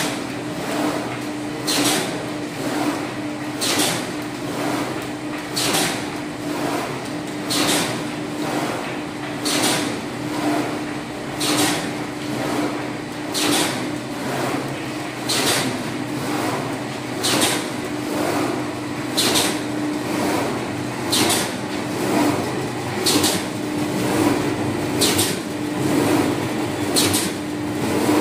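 Paper straw making machine running: a steady hum with a sharp, hissy stroke repeating evenly about once every two seconds as it cycles.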